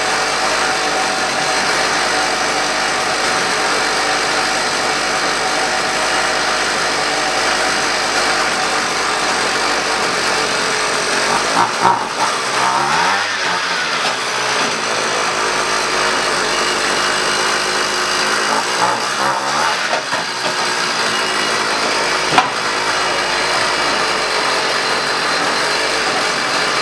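Strike Master ice auger's two-stroke engine running steadily as it warms up, revved up and back down twice, about halfway through and again a few seconds later. It is running smoothly on a newly fitted aftermarket carburetor.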